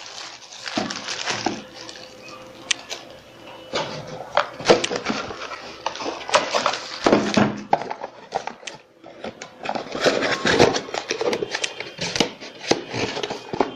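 Clear plastic bag crinkling and a small cardboard box being opened, folded and handled: irregular crackling rustles with small knocks and taps.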